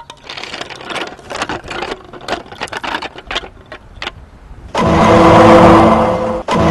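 Irregular clicking and rattling of a homemade rubber band car with CD wheels rolling over rough asphalt. About two-thirds in, a much louder steady engine-like drone takes over, cutting out for a moment near the end.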